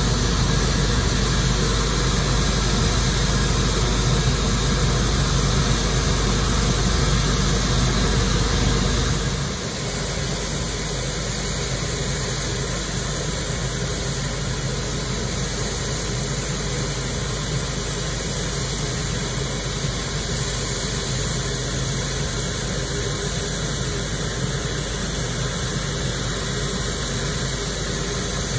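Steady engine and machinery noise with a hiss, from aircraft de-icing on the apron. About nine and a half seconds in, it drops abruptly to a quieter, less deep hum.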